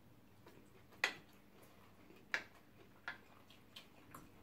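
Faint eating sounds at a table: four short, sharp clicks about a second apart, from utensils and mouths while food is eaten.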